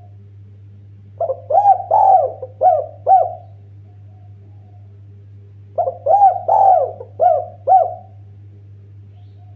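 Spotted dove cooing: two phrases of about five arched coos each, some four seconds apart, over a steady low hum.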